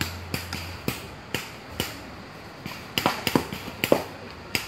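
Paintball markers firing, a string of sharp, irregular pops that come closer together about three to four seconds in.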